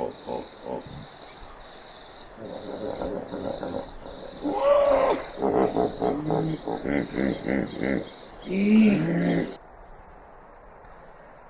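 Repeated calls from an animal over a steady chorus of insects such as crickets; the calls come in quick runs of short notes and a few longer, bending cries. About two-thirds of the way through, the recording cuts off and only a faint hiss is left.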